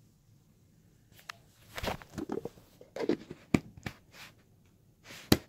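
Handling noise: rustling with several sharp clicks and knocks as plastic hair-product containers are handled and moved, the loudest knock near the end.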